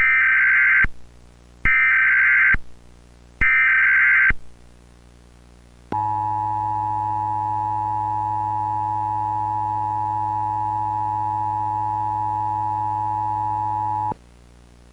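Emergency Alert System tones: three short bursts of SAME digital header data, about a second apart, then the two-tone attention signal held steadily for about eight seconds before cutting off.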